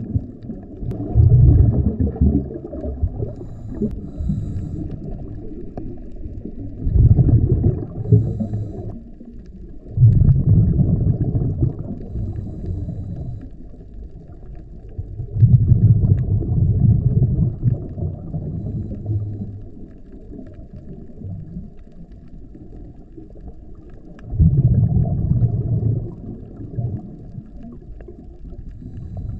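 Scuba diver's regulator exhaust heard underwater: five muffled rushes of exhaled bubbles, each lasting a second or two and coming every few seconds, over a steady low underwater rumble.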